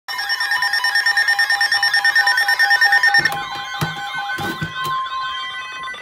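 Reecom R1650 weather alert radio sounding its alert tone: a loud, fast-pulsing electronic beep pattern over warbling tones that changes to a different, softer tone pattern about three seconds in, with a few knocks near the four-second mark. It is the radio's watch tone, set off by what was actually a severe thunderstorm warning.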